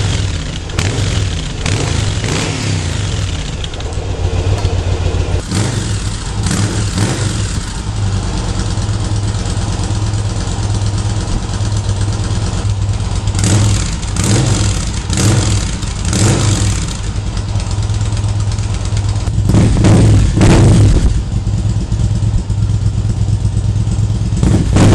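Yamaha BT1100 Bulldog's air-cooled V-twin running through its exhausts, idling with a series of short throttle blips and a longer, louder rev about twenty seconds in.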